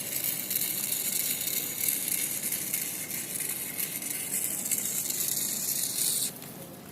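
Small DC motor of a homemade solar-powered toy vehicle running with a steady rattling whir as the vehicle shakes in place, cutting out about six seconds in.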